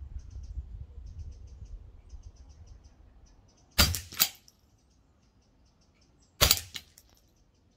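Shots from an AP80 semi-automatic .22 rimfire rifle: a quick pair of sharp cracks about four seconds in, then another shot about two and a half seconds later with small clicks after it.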